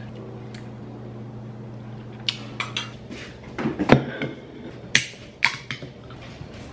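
Aluminium drink can handled on a countertop, its ring-pull worked open: a string of sharp metallic clicks and taps, the loudest with a short hiss just before four seconds in. A low steady hum fades out about three seconds in.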